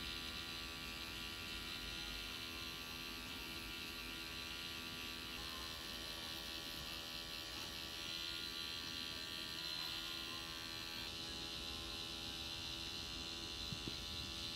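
Tattoo machine buzzing steadily as its needle works ink into the skin.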